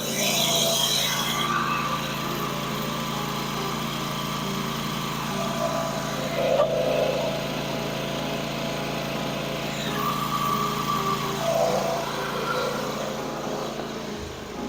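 Riding lawn mower's small engine running steadily.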